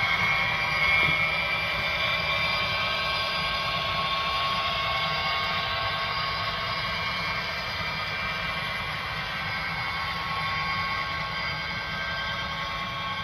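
Model Union Pacific SD70M diesel locomotive pulling a train of loaded coal hopper cars past: a steady running whine and hiss with the rolling of the cars on the track, slowly fading as the locomotive moves away.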